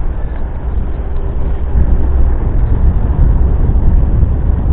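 Wind buffeting the microphone: a loud, uneven low rumble that grows a little stronger about two seconds in.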